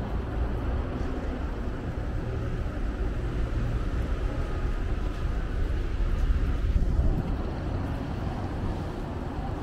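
Street traffic: a steady low rumble of passing vehicles, swelling to its loudest about six seconds in, with a faint whine that cuts off suddenly about seven seconds in.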